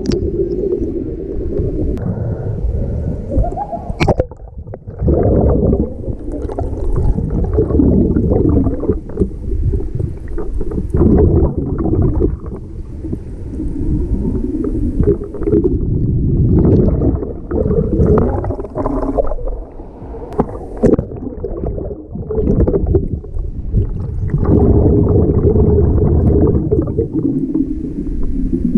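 Muffled water sloshing and gurgling, heard through an action camera that is under the water, with the higher sounds cut off. It swells and fades unevenly, with a few sharp knocks.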